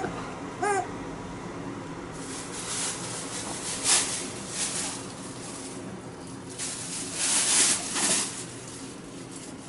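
A short squeak from a rubber chicken dog toy in an Alaskan Malamute's mouth, followed by irregular rustling and breathy noise as the dog chews and mouths the toy on the bedding.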